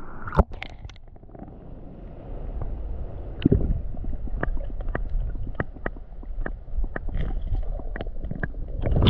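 Muffled underwater sound from a camera held beneath a shallow creek: a low rumble with many small clicks and taps. There is a sharp knock about half a second in, and the clicks grow frequent as a hand reaches among the stones to grab a crawfish.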